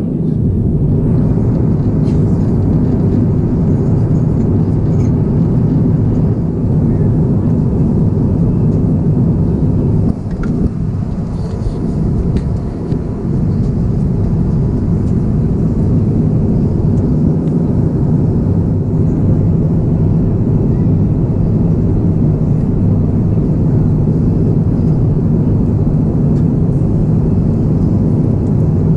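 Steady, low cabin noise of an Airbus A350-900 in flight, heard inside the cabin beside the wing: airflow over the fuselage mixed with the drone of its Rolls-Royce Trent XWB engines. The noise dips briefly about ten seconds in.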